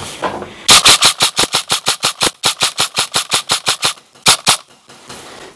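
Airsoft gun firing a rapid string of shots, about eight a second for some three seconds, then two more shots after a short pause.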